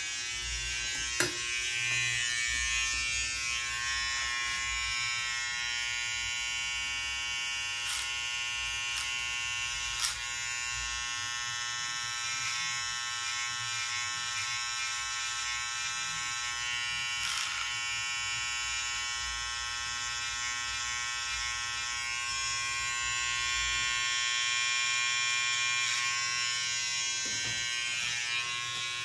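Electric beard clipper running steadily as it trims along the cheek and jaw line, a constant buzz with a few light clicks.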